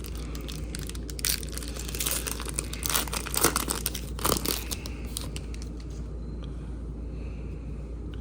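Trading-card pack wrapper being torn open and crinkled by hand, a run of crackles over the first five seconds or so that thins out towards the end.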